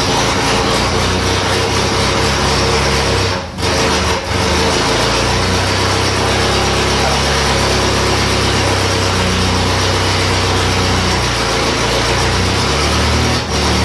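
Citroën B11's four-cylinder engine running on its first start after some 40 years standing, its speed stepping up and down. The sound dips sharply twice, about three and a half and four seconds in.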